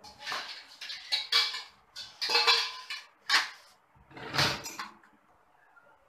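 Stainless steel plates, bowls and pots clattering against each other and the wire racks as they are loaded into a dishwasher: a run of clanks that stops about five seconds in.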